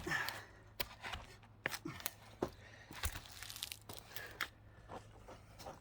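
Wood fibres cracking and tearing in a log that is partly split, an irregular string of sharp cracks and crackles as the split opens.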